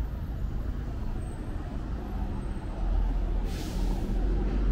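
Street traffic with a heavy vehicle's engine running close by, growing louder near the middle, and a short air-brake hiss a little past three seconds in.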